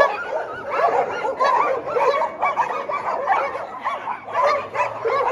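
Many dogs yelping and whining excitedly at once, a dense overlapping chorus of short rising-and-falling calls. It is their excited greeting of a caretaker who has just returned.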